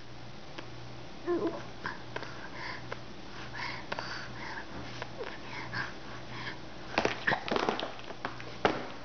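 A 9-month-old baby making silly breathy noises: short puffs and sniff-like breaths, with a quick, louder run of sharp puffs near the end.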